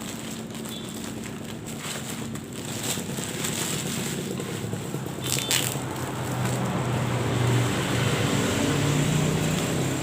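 Plastic packaging crinkling as a parcel is handled and opened, with a sharp crackle about five and a half seconds in. A low hum underneath grows louder in the second half.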